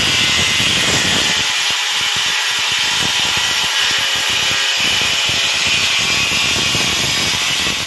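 Handheld electric angle grinder running steadily, its disc cutting through a floor tile with a continuous high grinding noise.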